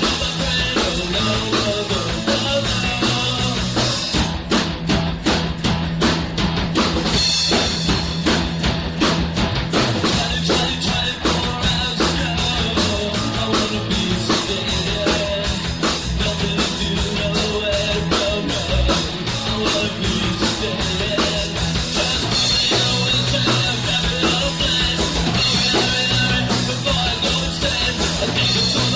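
A rock band playing live, a fast punk rock song with drum kit, electric guitar and bass at a steady driving beat.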